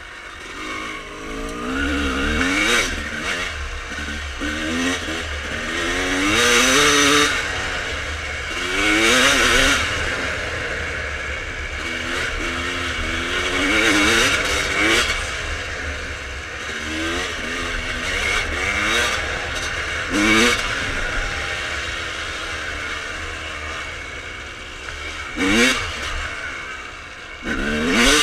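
1995 Honda CR250R single-cylinder two-stroke dirt bike with full Pro Circuit pipes being ridden hard. The engine revs up and falls back again and again, its pitch rising with each burst of throttle.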